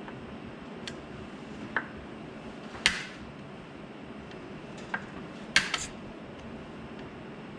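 A 5 mm hex key clicking and clinking against the steel bolts in a paramotor's propeller hub as the bolts are broken loose: a few sharp metallic clicks, the loudest about three seconds in and a quick pair just before six seconds.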